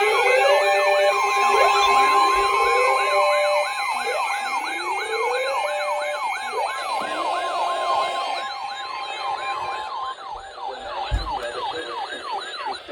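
Several emergency-vehicle sirens wailing and yelping at once over a steady alert tone. They grow gradually quieter and stop about ten seconds in, leaving only faint sound.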